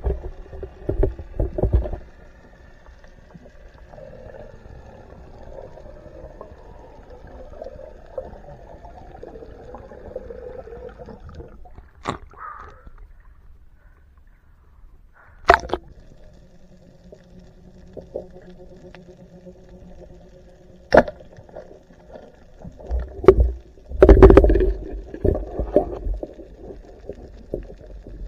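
Underwater sound picked up by a submerged camera: a faint steady hum, a few sharp clicks and knocks spread through, then loud, low rumbling bumps and water movement from about three quarters of the way in.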